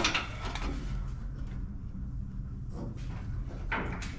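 Steel tube exhaust header clanking and scraping against the chassis and engine as it is worked into place, the clatter dying away in the first half second. After that a low steady hum with a couple of faint knocks.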